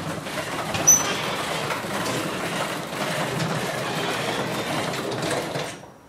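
Craftsman half-horsepower garage door opener running with a steady mechanical rattle, its drive belt loose by the owner's account, then stopping abruptly near the end.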